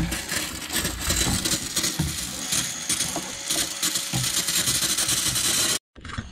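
A brush scrubbing and scraping across a gas boiler's burner and ignition electrodes: close, busy scratching with many small clicks, cutting off suddenly near the end.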